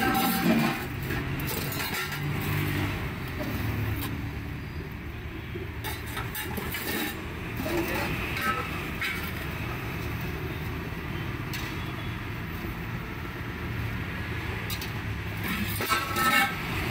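Steady low rumble of road traffic, with a few short clinks of serving ladles on steel pots.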